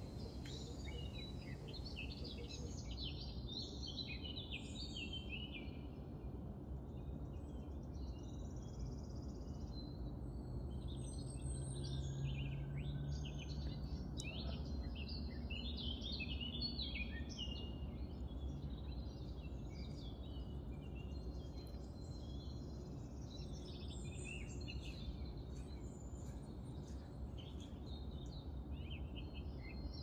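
Many small birds chirping and twittering over a steady low background rumble, with a faint low drone swelling briefly near the middle.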